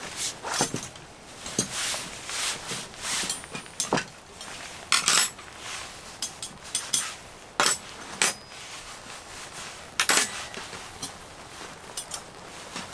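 Metal cutlery clinking and clicking as a spoon and fork are drawn from a fabric cutlery roll and set down on a hard camp tabletop, with cloth rustling between the clicks.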